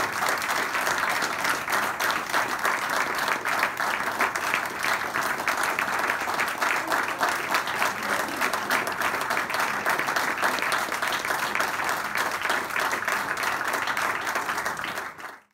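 Audience applauding with many hands clapping steadily, then cutting off sharply near the end.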